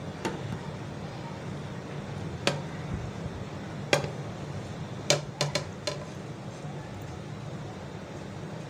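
Crockery clinking: a plate tipped against the rim of a glass bowl as chopped tomato and onion are scraped into yogurt, giving scattered sharp clinks, several close together about five seconds in.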